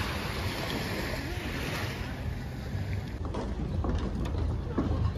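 Small waves washing onto a sandy beach, with wind on the microphone. About three seconds in, the sound changes abruptly to a quieter outdoor ambience with scattered light knocks.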